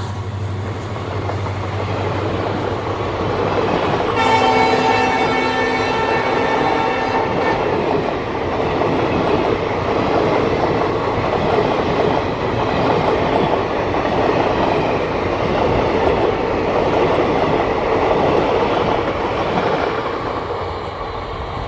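Passenger coaches behind a WDP4 diesel locomotive rolling past close by, a continuous rumble with wheel clatter on the rails. The locomotive's low engine drone fades out in the first few seconds, and about four seconds in its horn sounds a steady chord for around three and a half seconds.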